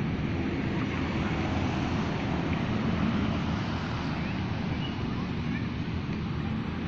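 Steady outdoor noise of wind buffeting the microphone, with a rumble of road traffic underneath.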